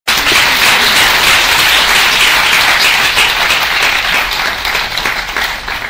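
Audience applauding, a dense patter of many hands clapping that thins out and gets quieter toward the end.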